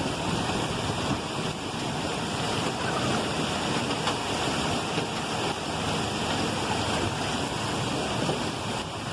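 Heavy rain and hail coming down in a steady, dense rush, with gusting wind.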